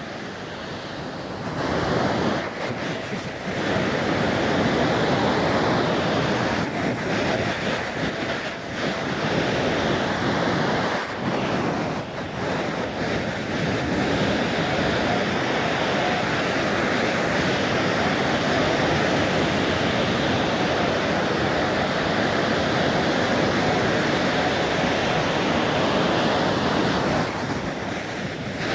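Strong wind buffeting the microphone over surf washing on the shore: a steady, loud rushing noise that swells up about a second and a half in.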